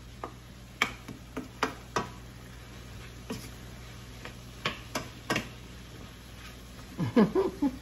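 Wooden spatula stirring food in a stainless steel skillet, giving sharp, scattered knocks and taps against the pan about once a second.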